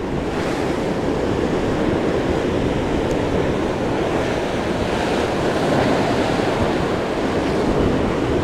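Heavy sea surf churning and breaking against the rocks below, a steady loud rush of water, with wind buffeting the microphone.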